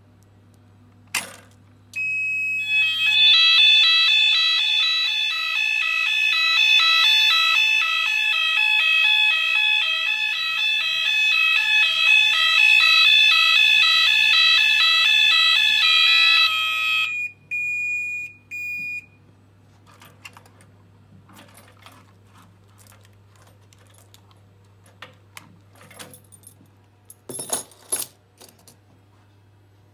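Gent S-Quad multi-sensor's built-in sounder going off in alarm: a loud, pulsing electronic alarm tone that starts about two seconds in and cuts off suddenly after about fifteen seconds, followed by a few short beeps. Near the end, a bunch of keys jangles.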